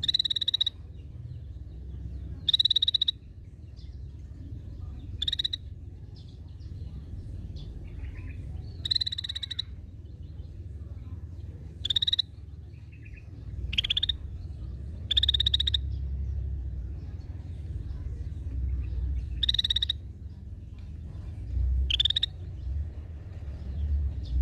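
Scaly-breasted bulbul (cucak bersisik) giving short, harsh buzzy calls, about nine of them, each under a second, repeated every few seconds over a low steady rumble.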